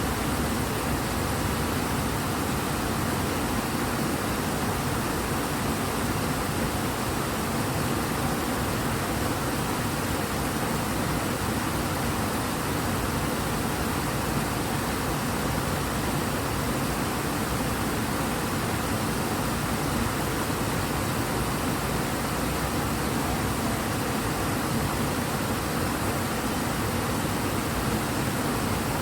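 River Ebro running high and fast: a steady rush of flowing water, even and unbroken.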